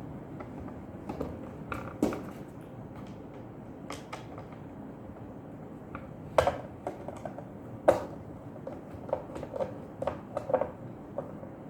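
Irregular clicks and knocks of a Maharaja sandwich maker's plastic and metal parts being handled and fitted back together during reassembly, over a steady low hiss. Two louder knocks come about six and eight seconds in, with a quicker run of clicks a little later.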